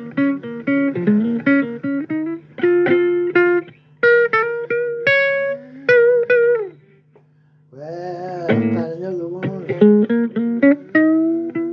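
Blues guitar music: quick picked guitar notes over a steady low hum, with a brief break about seven seconds in before the playing resumes.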